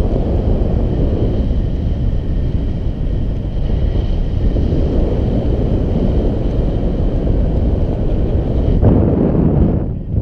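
Wind rushing over a GoPro Hero 4 Black's microphone while the camera flies on a paraglider pilot: a steady low rumble of air noise.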